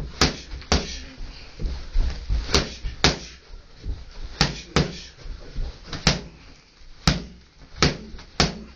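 Boxing gloves striking focus pads: about a dozen sharp slaps, mostly in quick pairs about half a second apart, like one-two combinations, with short pauses between them.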